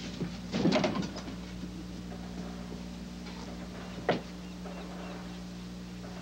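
Steady low hum with faint room sounds: a brief patter of small clicks and rustle about half a second in, and a single sharp knock about four seconds in.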